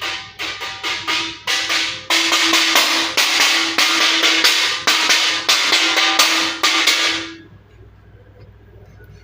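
Plates being knocked in rapid strikes, each one ringing briefly. The knocks speed up over the first two seconds, merge into a dense, loud clatter with a steady ring for about five more seconds, then stop a little after seven seconds in.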